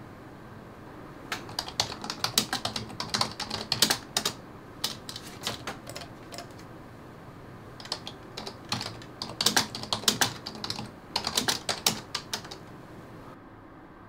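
Typing on a computer keyboard: quick runs of key clicks broken by short pauses, stopping near the end.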